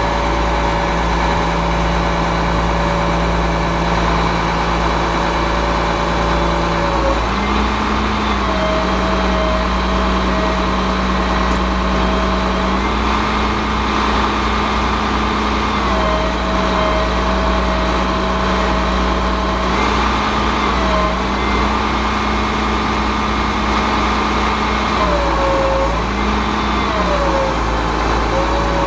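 Ford F8000's 8.3-litre six-cylinder diesel engine running steadily, its pitch stepping up and down several times as the hydraulic aerial boom is worked.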